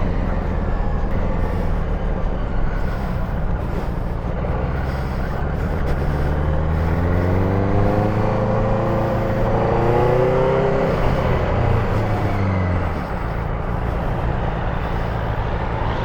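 Benelli TNT600's inline-four engine under way, rising in pitch as it pulls from about six seconds in to about eleven seconds, then easing off near thirteen seconds, with wind noise on the helmet-mounted microphone.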